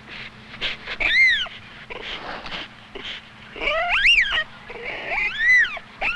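Cheetah cubs chirping: three high, bird-like chirps, each rising then falling in pitch, about a second in, around four seconds and near the end, with brief scratchy noises between them.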